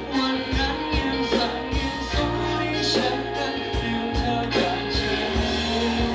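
A man singing a Thai pop-rock song live into a handheld microphone, through the PA, over an amplified band or backing track with a steady drum beat.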